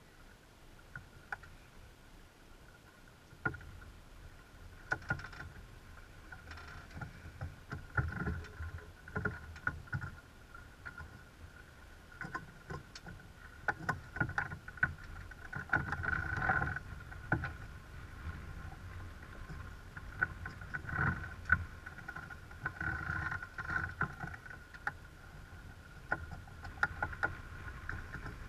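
Sailing yacht under way: water and wind rushing past the hull, with irregular bursts of sharp clicking from a deck winch's ratchet as a crewman cranks it to trim a sheet.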